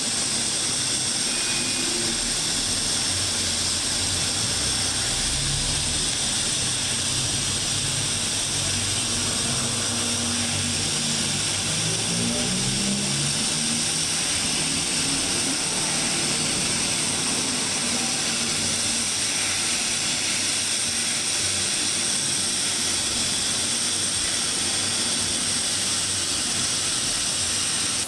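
TIG welding arc hissing steadily, with a thin, steady high whine over it.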